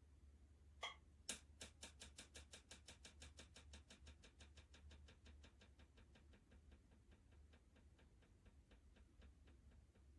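Faint mechanical ticking: two sharp clicks about a second in, then a run of regular ticks that gradually slow and fade, like something spinning or ratcheting down to a stop, over a steady low hum.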